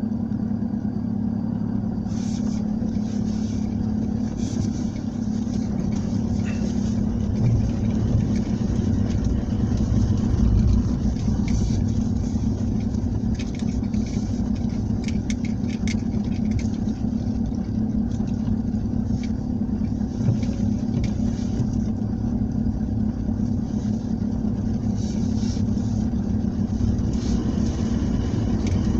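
A vehicle engine running steadily at a constant low pitch, with scattered light ticks over it.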